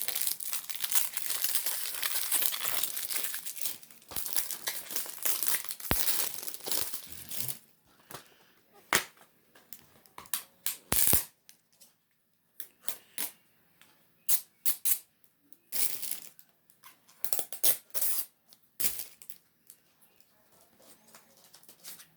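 Plastic shrink-wrap being torn and crinkled off a Blu-ray case for about seven and a half seconds. Then a series of separate clicks and taps as the plastic case is handled and opened.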